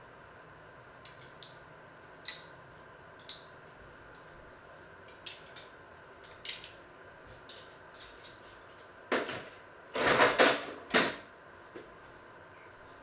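Kitchen dishes and cutlery clinking and knocking as they are handled, in scattered short knocks, with a louder run of clattering about nine to eleven seconds in.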